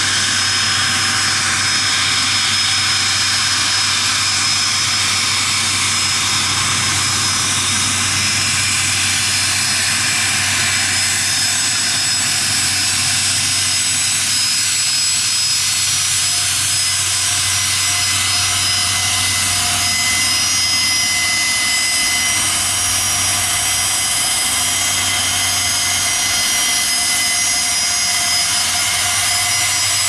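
Gulfstream G450 business jet's two Rolls-Royce Tay turbofans running at low taxi power as the jet rolls on the runway. The sound is a steady jet rush with several thin, high whistling tones over it, and no spool-up.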